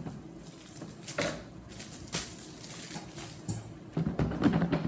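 Plastic shrink wrap crinkling and tearing in several short rustles as it is worked off a board game box.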